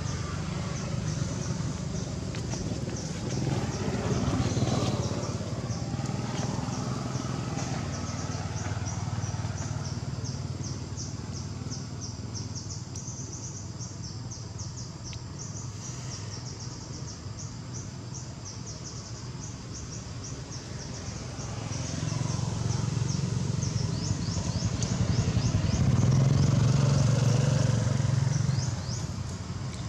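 Outdoor ambience: continuous high-pitched rapid chirping, with the low hum of a passing motor vehicle that grows louder about three-quarters of the way through, then fades.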